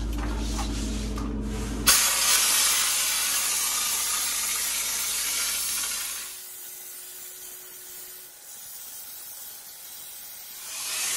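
EZ-Pro texture sprayer gun hissing as it sprays drywall texture, driven from a compressed-gas tank. The loud spray starts suddenly about two seconds in, drops to a quieter hiss about six seconds in, and comes back loud near the end.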